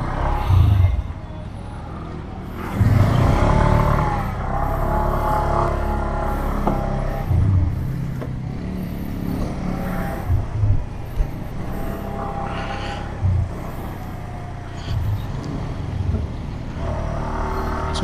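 Motorcycle engine running as it rides slowly through the street, its pitch rising and falling several times as it speeds up and eases off. Low wind rumble on the helmet-mounted camera's microphone swells now and then.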